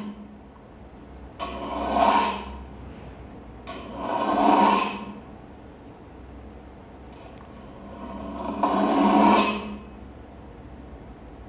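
Three rasping, scraping noises. Each swells up and fades over about a second, and there are longer quiet gaps between them.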